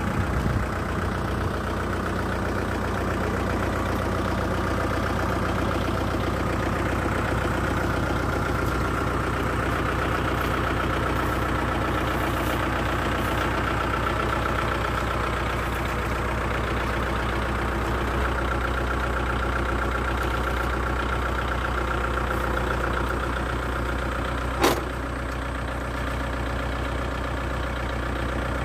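Tractor diesel engine running steadily at an even speed, with a single sharp click near the end.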